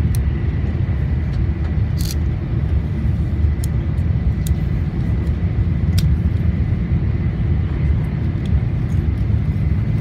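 Steady low rumble of an E4 series Max double-decker Shinkansen running at speed, heard inside the passenger cabin. A faint steady high tone runs under it, and a few light clicks come through, about two, three and a half, four and a half and six seconds in.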